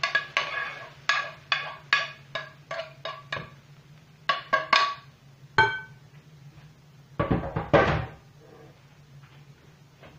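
Frying pan knocked and tapped with a metal utensil while cooked chicken strips are scraped out into a bowl. A dozen or so sharp, ringing knocks come about two a second, then a louder clatter about seven seconds in.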